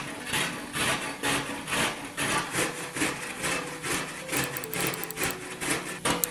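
Repeated scraping strokes of a kitchen tool working food against a wooden board, about two a second.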